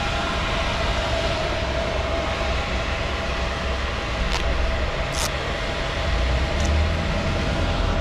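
Ducati Panigale V4S running steadily: a low uneven rumble under a steady whir, with a few short high ticks in the middle.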